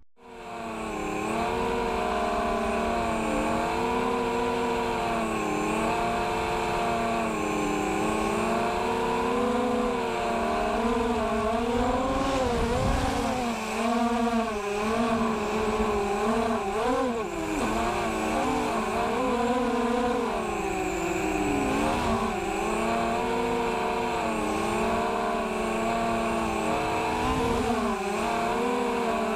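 The four Sunnysky 1806 2000KV brushless motors of a mini FPV quadcopter on a 4S battery whining in flight, their pitch rising and falling constantly with the throttle.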